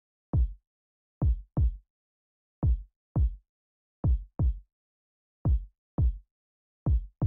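Deep, dull thumps in pairs, like a heartbeat. The pattern repeats about every second and a half, with silence between the pairs.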